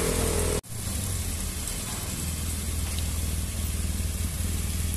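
Motorcycle engine running at low revs, a steady deep rumble, with a brief cut-out in the sound about half a second in.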